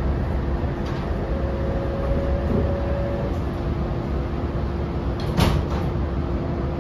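Interior running noise of an NSW TrainLink Oscar H set electric train: a steady low rumble with a constant hum. A single sharp knock sounds about five and a half seconds in.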